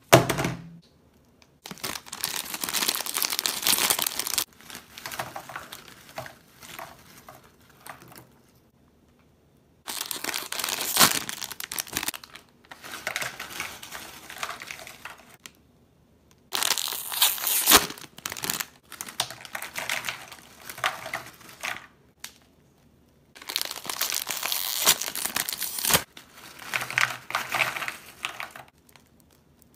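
Crinkly plastic chip bags rustling and crackling in repeated stretches as snacks are shaken out of them onto a plastic divided platter, with short silent gaps between. A single sharp knock opens it as the plastic platter is set down on the table.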